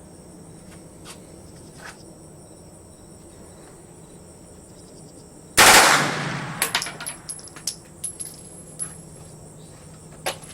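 A short full-automatic burst from a select-fire gun about halfway through, loud and ringing out after, followed by a few fainter sharp cracks.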